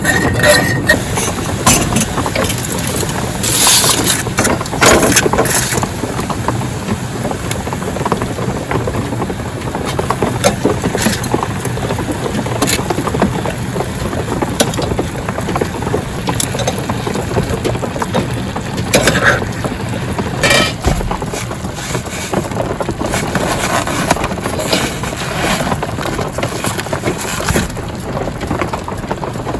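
Steady rain falling on a tarp, with a few scattered knocks and clinks over it.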